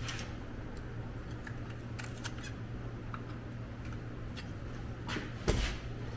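Light clicks and taps of the window seal retaining guide and its clips being fitted into a pickup truck's steel door, with one louder knock about five and a half seconds in, over a steady low hum.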